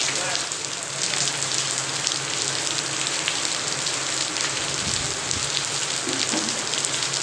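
Rain falling steadily onto a wet concrete yard: a constant hiss with many close drop splashes.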